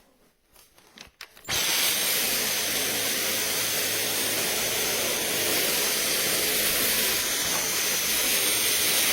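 A few small clicks, then about a second and a half in a vacuum cleaner switches on and runs with a steady, loud hiss and a faint low hum.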